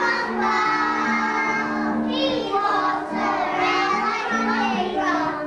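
Young children singing a song together over an instrumental accompaniment of steady held notes.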